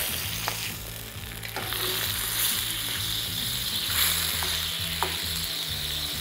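Creamy mushroom sauce sizzling and bubbling in a steel frying pan over a gas flame as a wooden spatula stirs it. The spatula scrapes the pan and clicks against it a few times.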